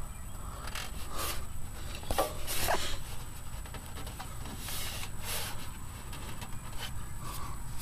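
A handful of brief rubbing and scraping noises, the loudest about a third of the way in.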